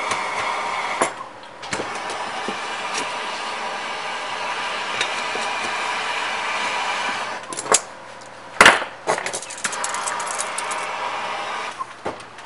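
Copper sheet-metal pieces and a locking clamp being handled and fitted together, with metallic clinks over a steady hiss. A sharp knock comes just under nine seconds in.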